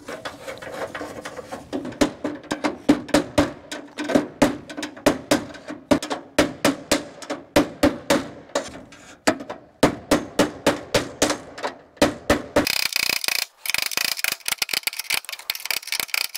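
A hammer driving a screwdriver against the lugs of a fat 3-inch conduit lock nut on a steel breaker panel: a long series of sharp metal strikes, two or three a second, each setting the panel ringing. Toward the end the strikes give way to a faster, higher-pitched metallic rattle.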